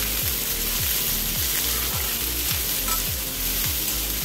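Sliced onions frying in hot oil in a metal kadai, a steady sizzle. A slotted steel spatula stirs and scrapes them around the pan while they are fried towards light brown.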